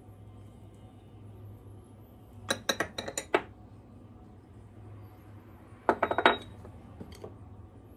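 A kitchen utensil clinking against a mixing bowl while ingredients are combined: two quick flurries of rapid clinks about three seconds apart, then a single clink near the end.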